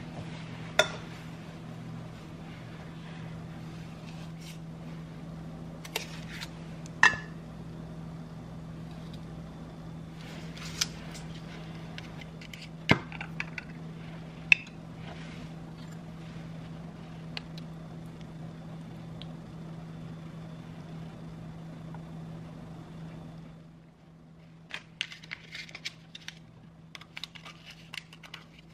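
A metal plate, dishes and a glass jar clinking and knocking on a kitchen counter as food is set out and the jar is opened, over a steady low hum that cuts off about 23 seconds in. Near the end comes a run of crinkly rustling as a wrapper is handled.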